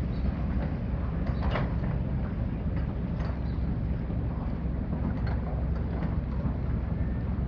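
Lobster boat engines running across the harbor as the boats head out: a steady, low, even drone.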